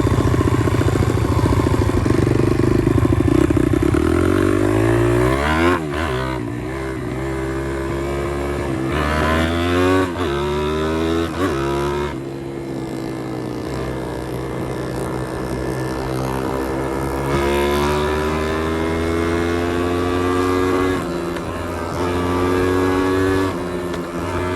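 Pit bike's small single-cylinder engine pulling hard while riding. Steady at first, then from about four seconds in it climbs through the gears, its pitch rising in runs and dropping back at each shift, about five or six times.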